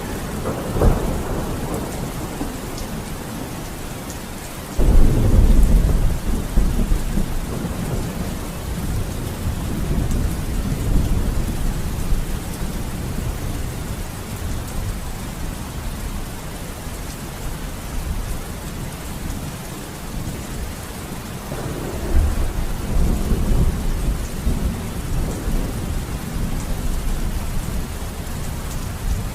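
Steady rain with thunder rumbling through it: a loud thunderclap breaks in suddenly about five seconds in and rolls for a few seconds, and another long rumble builds about two thirds of the way through.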